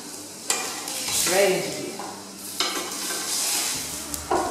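Zucchini slices sizzling on a hot ridged grill pan, with three sharp clicks of metal tongs against the pan and a stainless steel tray as the slices are lifted across.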